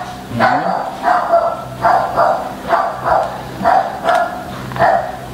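A dog barking over and over in a steady run, nearly two barks a second.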